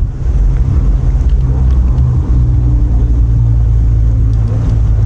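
Loud, steady low rumble, with a faint hum in the middle.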